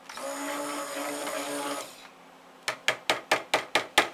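Stick blender running in a bucket of cold-process soap batter for about two seconds, blending in the yellow mica colour, then stopping. After a short pause, a quick run of about eight sharp taps as the blender shaft is knocked against the bucket rim.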